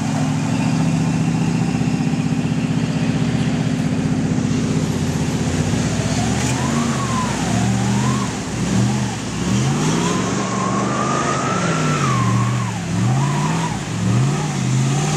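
A pickup truck's engine runs steadily at first. From about six seconds in it revs up and down again and again as the lifted truck churns through deep mud, with a whining tone rising and falling along with the revs.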